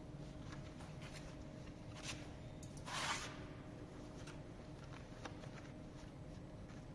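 Faint steady hum with scattered light clicks and one short rustling burst about three seconds in.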